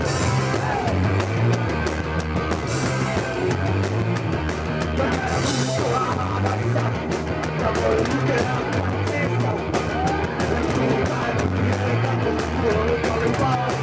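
Hardcore punk band playing live: distorted guitar, bass and fast drums, with cymbal crashes near the start and twice more in the first six seconds.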